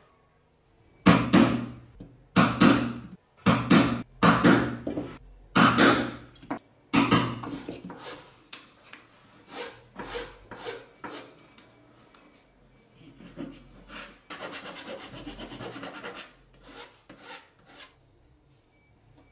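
Hand work on small wooden pieces: about half a dozen loud rasping strokes on wood, then shorter, quieter strokes as a chisel cuts small blocks from thin wooden strips, and a steady stretch of rasping a few seconds before the end.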